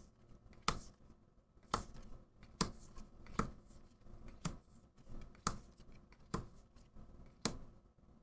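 Quiet handling of Magic: The Gathering trading cards as a freshly opened pack is flipped through one card at a time: a sharp card snap about once a second, with soft sliding between.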